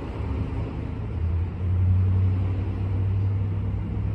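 Metro-North M8 electric multiple-unit train giving off a steady low hum that swells about a second and a half in and eases off near the end.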